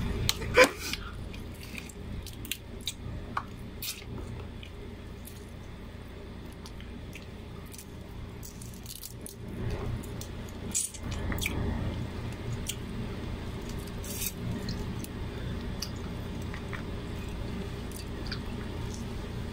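Close-up eating sounds: crab shell being cracked and picked apart by hand, and chewing, as scattered small clicks and wet squishes over a low steady hum.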